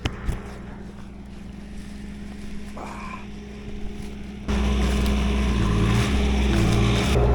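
Skid steer engine running steadily, then throttling up and growing much louder about four and a half seconds in, as the machine goes to work.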